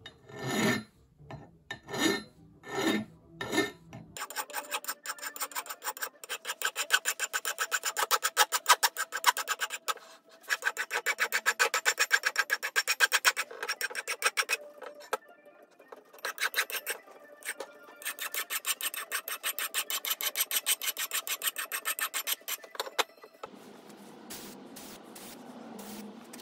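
Hand file rasping along the edges of an old Warwood mattock's steel head, dressing the edges in runs of quick, repeated strokes with short pauses between runs. The filing stops near the end.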